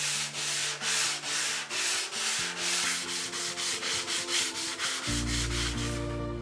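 Rhythmic abrasive rubbing strokes by hand, about two to three a second, with background music underneath. The strokes stop about five seconds in as the music swells.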